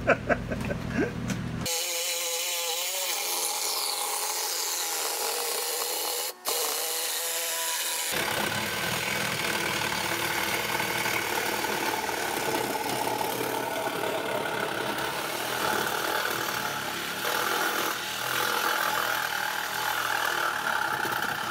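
Handheld power tool running steadily as it cuts through a water heater's steel tank, with a brief dropout about six seconds in.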